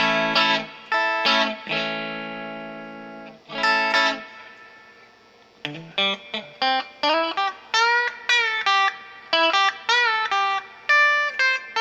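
Stratocaster-style electric guitar with Wilkinson Vintage Voice Alnico V single-coil pickups, played through an amp on the second pickup position (bridge and middle together). A few strummed chords come first, one left to ring out and fade; about six seconds in, a run of picked single notes with string bends follows.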